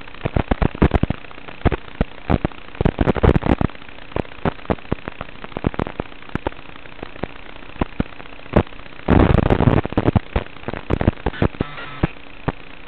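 Crackling static from an analog FPV video receiver's audio channel: irregular sharp clicks and pops over a steady hiss and hum, with a dense burst of crackle about nine seconds in. The crackle is the sign of a weak, breaking-up analog video link.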